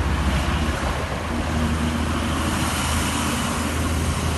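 Honda CBZ Xtreme's single-cylinder engine idling with a steady low rumble, with road traffic noise around it.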